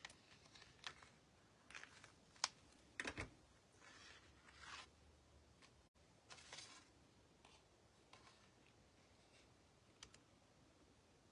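Faint handling of cardstock on a craft mat: sparse light clicks and taps with a few short paper rustles, the sharpest click about two and a half seconds in and a small cluster of knocks just after.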